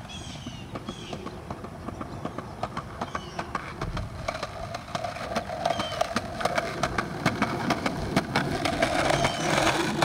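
Skateboard wheels rolling over pavement, growing louder as the board comes closer, with many quick clicks over cracks and joints. A few bird chirps near the start.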